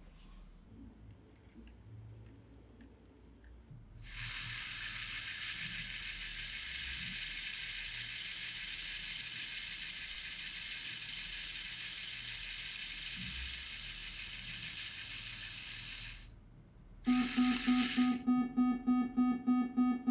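A Lego Technic electric motor and gear train running with a steady high whirring hiss that switches on abruptly about four seconds in and cuts off about twelve seconds later. Near the end a loud pulsing buzz repeats about five times a second.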